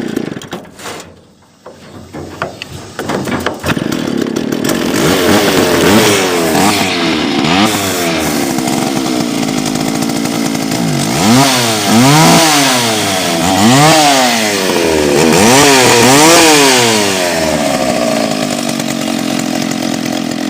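McCulloch Timber Bear two-stroke chainsaw engine running. It nearly dies and sputters about a second in, then catches and is revved up and down several times before settling back to idle. The carburetor is one that the owner says still needs adjusting.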